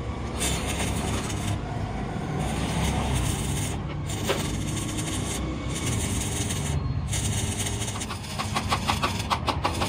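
Stick-welding arc crackling as an electrode lays weld onto the broken teeth of a steel helical gear pinion shaft, in stretches broken by short pauses, with a run of sharper pops near the end.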